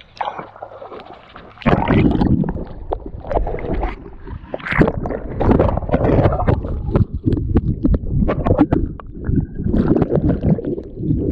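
River water splashing and sloshing, irregular and loud, with many short sharp splashes; it picks up strongly about a second and a half in.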